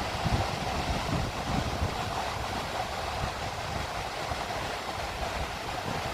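Sea surf and wind: a steady rush of noise with an uneven low rumble underneath.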